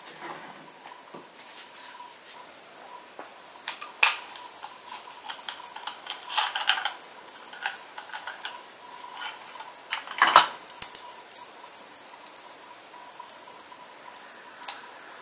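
Glass microscope slides and a plastic slide case being handled: scattered light clicks and clinks, with the loudest clatter about ten seconds in.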